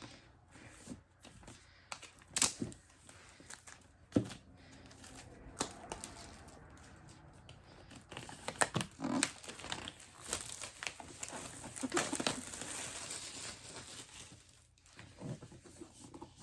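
Wrapping on a MacBook Air box being torn off and crumpled by hand, with scattered sharp knocks from handling the box, then a stretch of steady crinkling in the second half.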